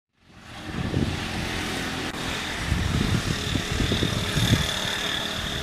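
Outdoor background noise fading in: an irregular low rumble under a steady hiss, with a faint high-pitched tone that joins about two seconds in.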